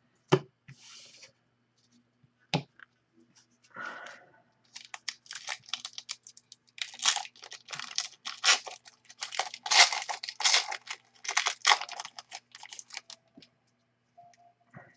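Hands opening a trading card pack and handling the cards. A few single clicks come first, then from about five seconds in a dense run of rapid crinkling and snapping, which stops about thirteen seconds in.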